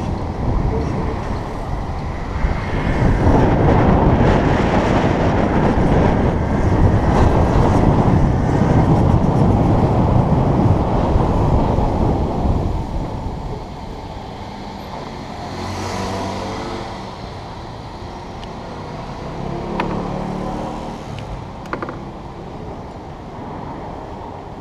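Wind rushing over the microphone and road noise from an electric motocross bike riding through city traffic, loudest for the first half. It then drops to quieter street traffic, with a hum rising and falling twice as the ride slows to a stop.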